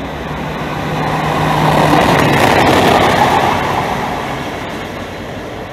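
Diesel locomotive running through the station, its low engine drone and wheel rumble swelling to a peak about halfway through and then fading as it passes.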